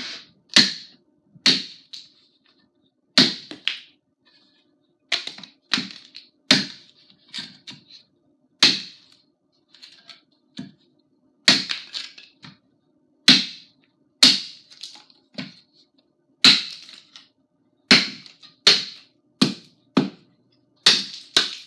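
Forged tomahawk chopping into a 2x4 stood on end on a log chopping block: a long run of sharp, cracking wooden strikes at an uneven pace, about one to two a second, as chips split off the board.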